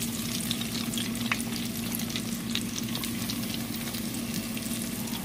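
Breaded jumbo shrimp deep-frying in a pot of hot oil: a steady, busy sizzle full of fine crackles and pops. A steady low hum runs underneath.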